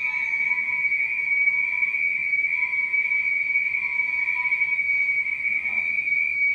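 A steady high-pitched whistling tone, with a fainter, lower tone beneath it.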